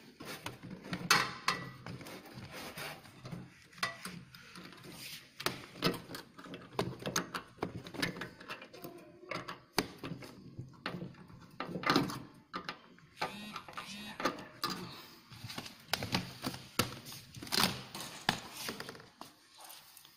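Irregular clicks, rustles and crinkles of hands at work: an aluminium foil flexible duct being pushed onto an exhaust fan's outlet collar and its clamp tightened with a screwdriver.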